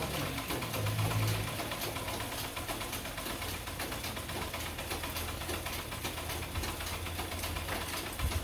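An engine running steadily with an even mechanical rattle.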